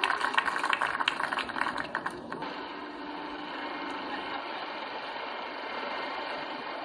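Golf gallery applause: many spectators clapping in a dense patter, cut off abruptly about two seconds in. After that only a steady, even background hush of the outdoor course remains.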